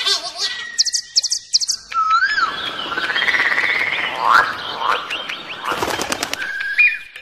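Birds chirping and calling in quick, gliding notes. From about two seconds in, a stream rushes steadily over rocks beneath the calls.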